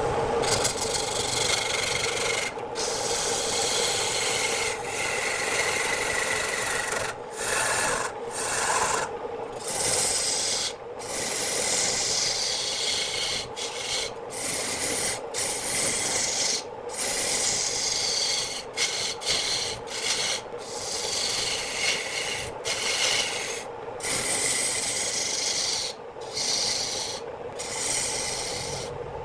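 Wood spinning on a lathe being cut by a hand-held turning tool, a steady rasping scrape over the lathe's hum. The scrape breaks off for a moment a dozen or so times as the tool is lifted, and it slides down in pitch now and then as the cut moves.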